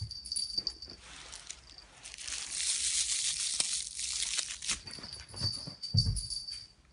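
A crumpled aluminium-foil ball crinkling in a hand, with bedding rustling, and a soft thump about six seconds in.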